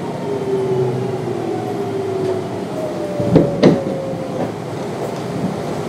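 Kintetsu 3200 series train's Mitsubishi GTO-VVVF inverter whining in two slowly falling tones as the train brakes for a station stop; the whine cuts out about four and a half seconds in. Two loud knocks from the wheels on the track come about three and a half seconds in, with lighter wheel clicks near the end.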